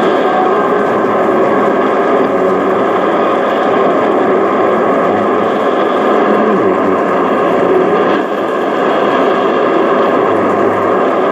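Yaesu FRG-8800 shortwave receiver tuned to 10140 kHz, its speaker giving a steady jumble of static and distorted, overlapping signal: an intermodulation product of Chinese shortwave broadcast stations. The sound dips briefly about eight seconds in.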